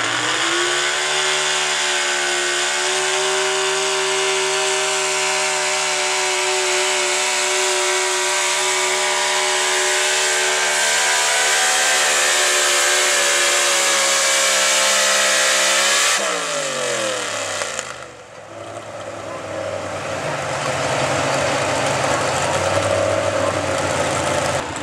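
Altered-stock 4x4 gas pickup engine at full throttle pulling a weight-transfer sled, revs held high and steady for about sixteen seconds. Then the throttle is cut and the revs fall away sharply, leaving the engine running low.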